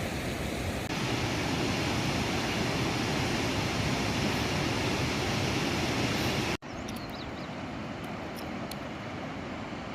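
Steady rush of a river's water, broken by an abrupt cut about two-thirds of the way in to a slightly quieter rush with a few short bird chirps.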